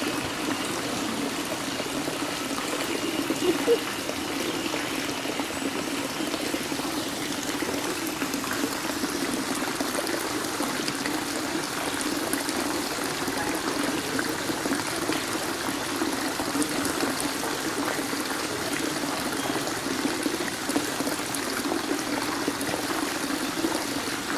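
Steady pouring and trickling of running water into a pond.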